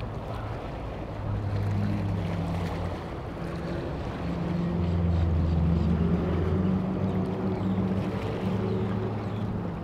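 A low engine drone that grows louder through the middle and eases off near the end, over a steady wash of wind and water noise.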